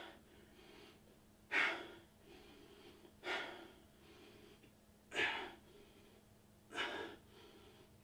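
A man breathing out hard four times, about every one and a half to two seconds, an effort breath with each rep of alternating seated presses.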